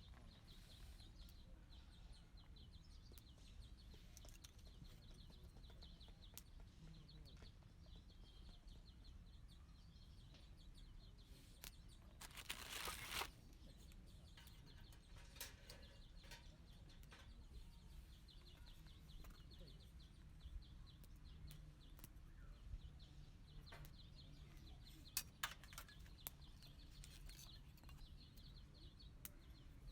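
Quiet outdoor ambience with faint bird chirping repeating throughout. About twelve seconds in there is a noisy swish lasting about a second, and a few sharp clicks come about 25 seconds in.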